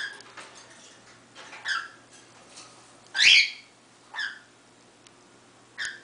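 Female cockatiel giving short chirping calls, about five in all, roughly one a second, the loudest and harshest one about three seconds in, falling in pitch.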